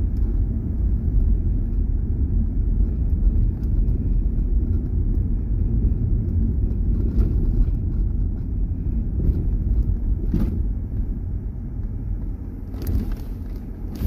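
Car driving on an unpaved dirt road: a steady low rumble of engine and tyres, with a few short knocks from bumps in the road.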